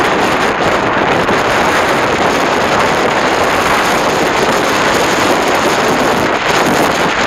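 Wind buffeting a small action camera's microphone: a loud, steady rushing noise.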